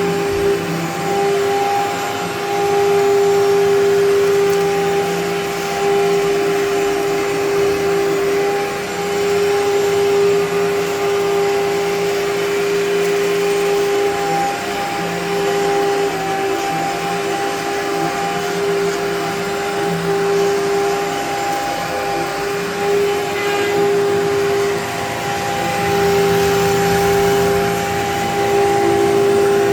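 Amway ClearTrak upright vacuum cleaner running with a steady motor whine, its loudness swelling and dipping slightly every few seconds.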